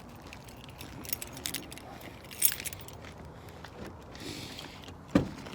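Scattered light clicks and rattles of small things being handled, then one sharp knock a little after five seconds in.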